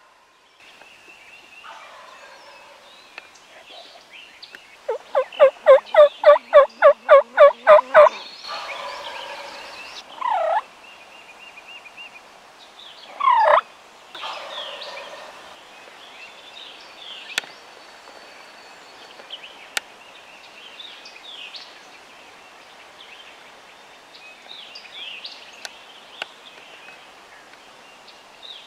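Turkey calling: a fast run of about a dozen yelps, about four a second, from about five to eight seconds in, then two louder single calls. Fainter bird chirps and a few sharp ticks follow.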